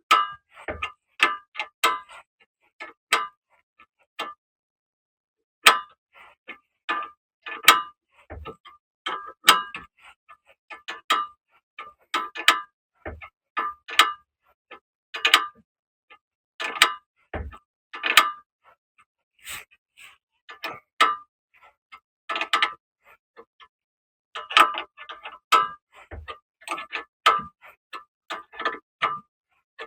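Hand ratchet wrench clicking in short, irregular runs of sharp metallic ticks, with an occasional knock, as it tightens the nuts of a rear stabilizer link.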